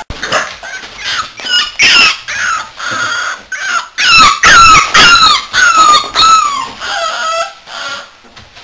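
American Staffordshire Terrier puppies squealing and yelping as they play-fight, a rapid string of short high-pitched cries that rise and fall, loudest about two seconds in and again around four to five seconds in.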